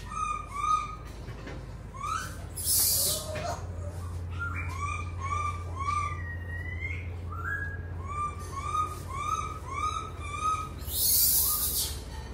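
An animal calling: a series of short, high, rising-and-falling notes repeated about two a second, broken by two louder bursts of hiss, about three seconds in and near the end.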